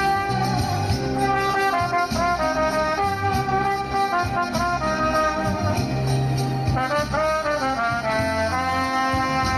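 Trumpet playing a melody of held notes that step up and down in pitch, with a lower bass line moving underneath.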